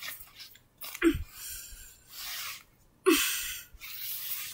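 A person making breathy vocal noises rather than words: two short cries that fall in pitch, each followed by a long hissing rush of breath, with softer huffs between.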